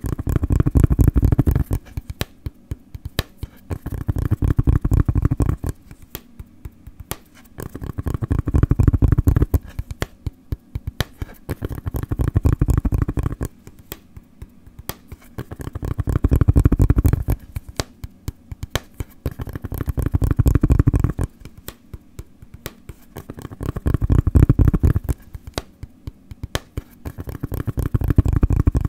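Close-miked rhythmic tapping: fast runs of taps lasting about two seconds, coming roughly every four seconds, with lighter, sparser taps in between.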